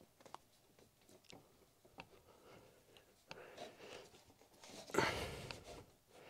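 Faint clicks and rustling of hands working loose an air-conditioning pipe and its bolts under the bonnet, with a louder scuffing rustle about five seconds in.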